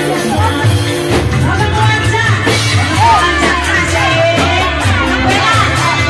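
A woman sings a melismatic, ornamented melody into a microphone over loud live Reog band music from Indramayu, driven by a steady, repeating drum beat.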